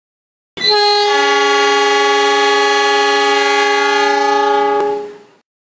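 A train's multi-tone air horn sounding one long, steady chord of about four and a half seconds, with a click near the end before it fades out.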